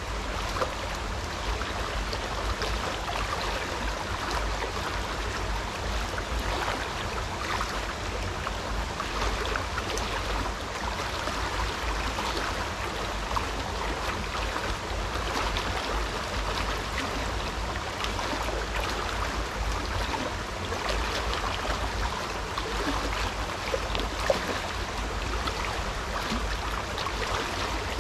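Steady rush of flowing river water, with a low rumble underneath and a few faint clicks.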